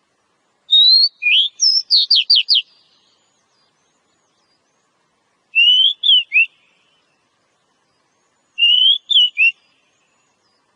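Oriental magpie-robin (kacer) singing: three short phrases of clear, sweet whistled notes. The first phrase, about a second in, is the longest and ends in a quick run of falling notes. Two shorter three- to four-note phrases follow, one near the middle and one near the end.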